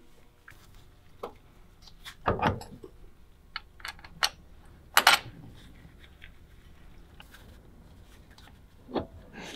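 Scattered metallic clinks and knocks of hand tools and parts being handled as a driveshaft is refitted, about six in all, a heavier knock a little after two seconds in and the loudest clank about five seconds in.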